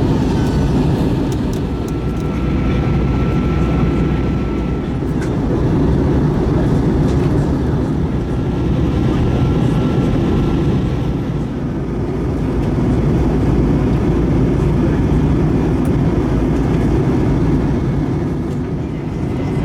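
Airbus A321 cabin noise: a steady, loud rush of engines and airflow, heavy in the low end, swelling and easing slightly every few seconds.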